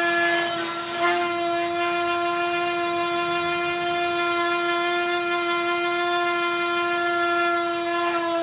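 Electric sander running with a steady, loud motor whine, briefly dipping and wavering about a second in.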